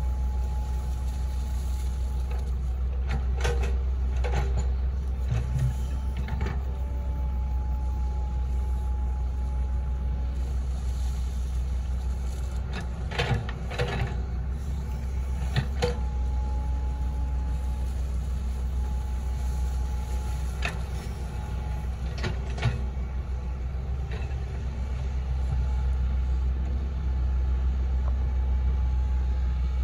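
Hitachi Zaxis 110 excavator's diesel engine running steadily under load, with a faint hydraulic whine that comes and goes as the boom, arm and bucket move. A few sharp metallic clanks come through, most around the middle.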